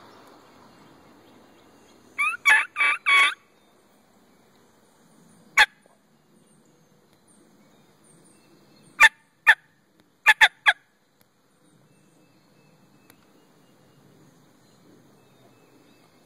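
Turkey yelps and clucks from a hunter's turkey call, loud and close. A run of four yelps comes about two seconds in. Six short, sharp clucks follow: one alone, then a pair, then a quick three.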